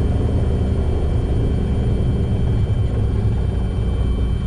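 Two Pratt & Whitney R-2800 radial piston engines on a Douglas DC-6 running steadily during a ground run-up, a deep even rumble heard from inside the cockpit.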